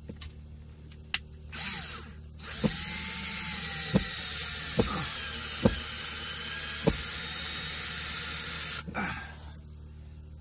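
Handheld power drill running steadily for about six seconds with a high whine, four sharp clicks during the run, likely putting a hole through the vinyl. A click and a short burst of noise come before it starts.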